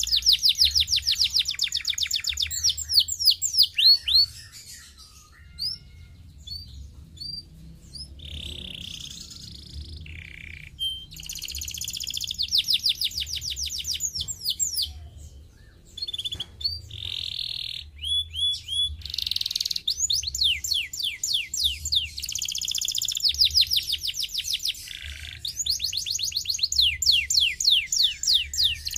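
Domestic canary singing: fast trills of rapid, downward-sweeping high notes, phrase after phrase. Twice the song thins out for a few seconds to scattered single notes and short rolls, then picks up again into dense trills.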